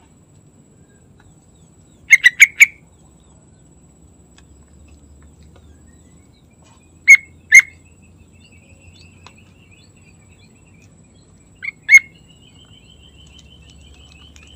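Yellow-vented bulbul calling in short, loud, bubbly notes: a quick run of four about two seconds in, a pair near seven seconds and another pair near twelve seconds. A faint rapid trill runs in the background from about eight seconds and grows stronger near the end.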